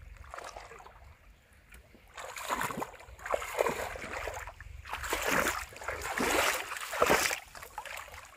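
Splashing in shallow pond water as a person wades through it: quiet at first, then a run of splashes about one a second from about two seconds in, ending shortly before the end.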